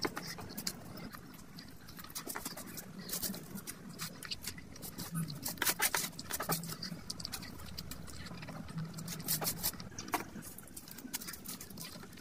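Close-miked eating sounds: wet chewing and lip smacks with many sharp clicks, and fingers squishing and mixing rice and curry.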